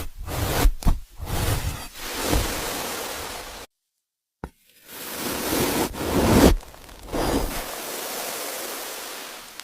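AI-generated ASMR eating sound effects: loud hissing and crackling noise in several abruptly cut segments, with a few sharp pops, broken by about a second of dead silence roughly four seconds in.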